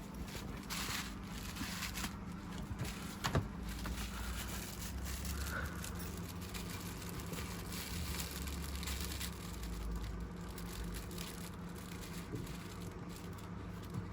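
A dog playing with a toy: irregular crinkling, scraping and rustling with scattered small knocks, one sharper knock about three seconds in, over a faint steady hum.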